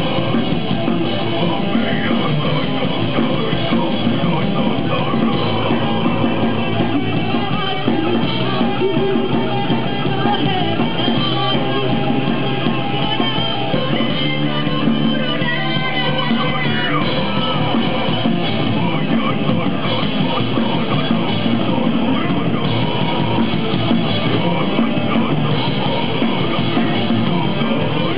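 Live rock band playing steadily and loudly: electric guitars, bass and a drum kit.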